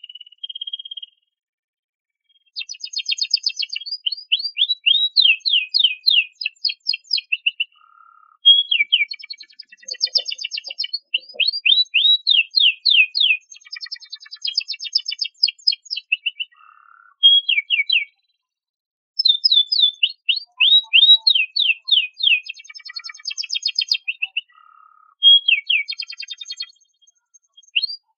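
Canary singing: long phrases of fast trills and quick, repeated high sweeping notes, broken by short pauses.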